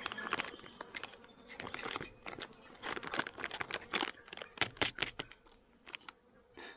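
Foil meal pouch crinkling and crackling in the hands as it is handled and turned over, a rapid irregular run of sharp crackles that thins out near the end. A faint steady insect buzz runs underneath.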